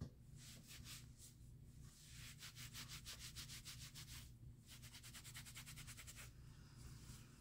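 Faint rubbing of a cloth against skin, wiping eyeshadow swatches off a hand. Quick, even back-and-forth strokes, about six a second, in two spells starting about two seconds in.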